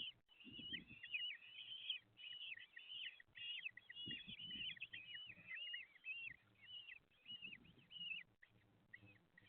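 Common kestrel chicks giving shrill begging calls in the nest box: a dense run of short, arched squeals several a second, thinning out near the end, with low bumps of movement underneath.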